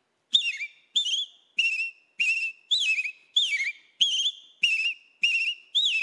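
A man whistling an imitation of a rufous-bellied thrush's (sabiá-laranjeira) song: short, clear whistled phrases with swooping pitch, about ten of them, one after another every half second or so.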